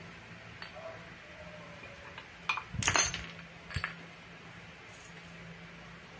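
Metal parts of a scooter's CVT variator clinking as the roller weight housing is pulled off and set down on a tiled floor: a short run of clinks and knocks, the loudest about halfway through.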